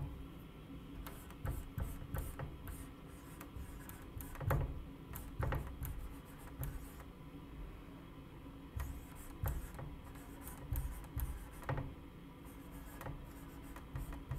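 Faint room tone with a steady low hum, broken by scattered light knocks and rubbing sounds.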